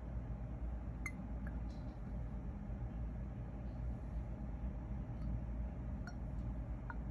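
A few light glass clinks and ticks, four in all, two about a second in and two near the end, from handling a glass perfume bottle, over a steady low hum.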